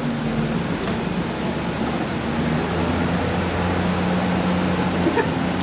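2002 Ford Ranger's engine idling steadily with its automatic transmission shifted into reverse and the wheels spinning, a sign that reverse engages and works. The hum drops slightly in pitch about two seconds in.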